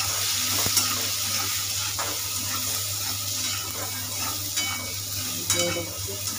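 Tomato, onion and spice masala sizzling in a hot kadhai as it is fried and stirred with a metal spatula. A few sharp clicks come from the spatula knocking and scraping against the pan.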